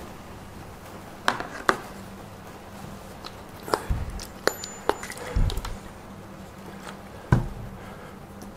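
Handling noises at a workbench: scattered light clicks and clinks from a metal airbrush and a plastic squeeze bottle, with two dull thumps near the middle, over a faint steady hum.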